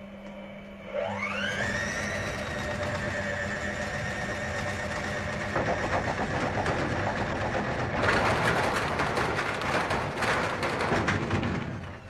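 Front-loading washing machine with its concrete counterweights removed, its drum motor spinning up with a rising whine that then holds steady. For the last few seconds it rattles and clatters loudly as the unbalanced machine shakes, before it dies away at the end.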